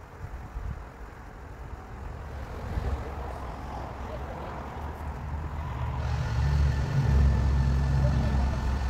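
Pickup truck engine running at low speed as the truck is eased into place, with a steady low rumble that grows louder over the last few seconds.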